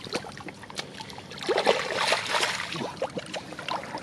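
Splashing and sloshing in shallow muddy water, with many irregular small slaps and squelches that grow busiest about halfway through, as fish are grabbed and scooped from the mud.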